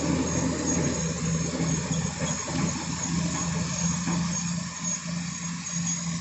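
Heavy diesel engine of earth-moving machinery running steadily with a constant hum. A heavier rumble eases off about a second in.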